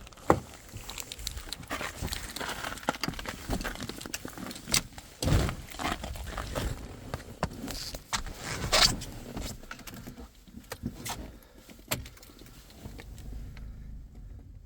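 Keys jangling amid irregular clicks, knocks and rustling from handling, growing quieter after about ten seconds.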